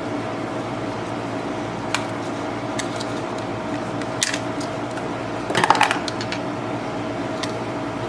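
Scattered sharp clicks and small snaps as the plastic handle scale of a Victorinox Deluxe Tinker Swiss Army knife is pried off with a thin tool. A quick run of clicks a little past halfway is the loudest moment. The scale is being forced off the wrong way and ruined, over a steady background hum.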